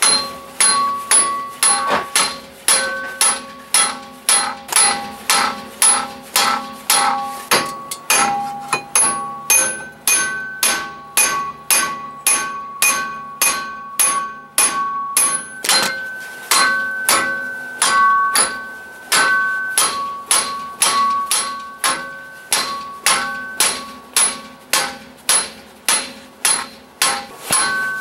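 Hammer blows on the steel rear wheel hub of a 2017 Subaru Impreza, about two a second, each with a bright metallic ring, driving the hub out of its bearing.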